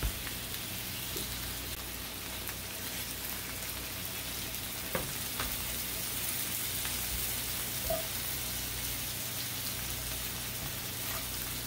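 Sea scallops searing in olive oil in a cast iron pan: a steady sizzle, with a few faint clicks about five and eight seconds in.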